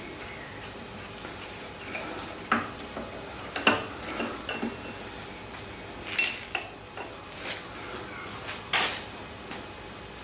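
Steel tools and parts clinking and knocking against a metal shaper's tool head during hand work: a handful of separate clinks, the loudest about six seconds in, ringing briefly.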